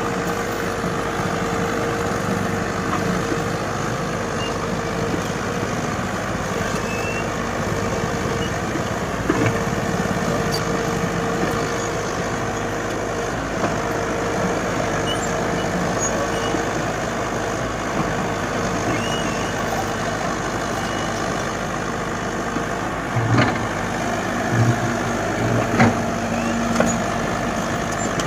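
Komatsu excavator's diesel engine running steadily, with a steady high whine over it. Several short clanks come near the end.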